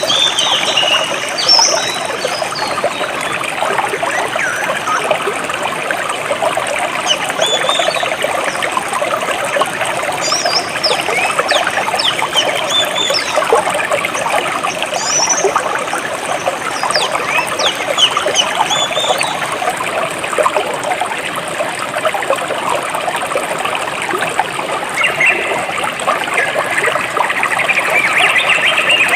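A stream flowing and trickling steadily, with birds chirping in short high calls at intervals, most in the first two-thirds and again near the end.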